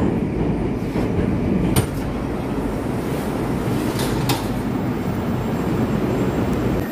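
Moscow metro train rumbling as it pulls into the station and stops, heard from inside the car and then at the open door. A few sharp clacks come at about two seconds in and again around four seconds in.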